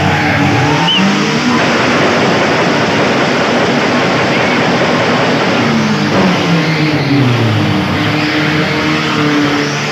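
Small buggy's engine revving up and down as the car drifts in tight circles, its pitch rising and falling, with a dense rushing noise filling the middle few seconds.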